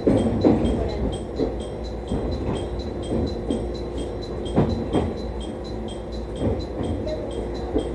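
Train running slowly over jointed track and points, heard from inside the front cab: a steady low rumble with irregular wheel clacks.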